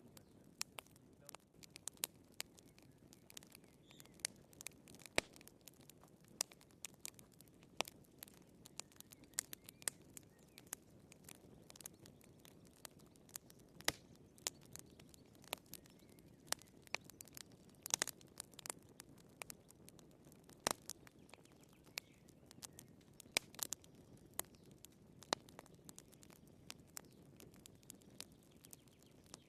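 Burning firewood crackling in a fireplace: irregular sharp pops and snaps, several a second at times, over a soft low rush of flame.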